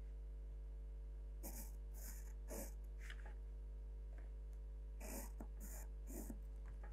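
Pencil drawing lines along a set square on drafting paper: a run of about four short scratchy strokes a second and a half in, then three more about five seconds in, over a steady low hum.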